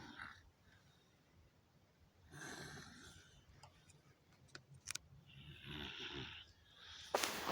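A sleeping person snoring: two snores about three seconds apart, each about a second long. A few faint clicks fall between them, and a sudden loud noise starts near the end.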